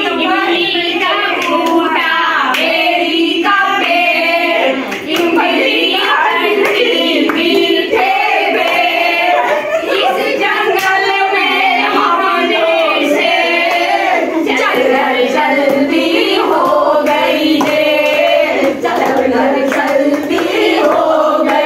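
Women's voices singing a song together, with hand-clapping along to it throughout.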